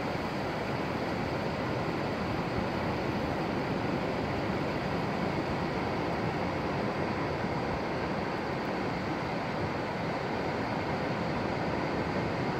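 Steady low rush of wind on the microphone and surf at the shoreline, with no breaks or distinct events.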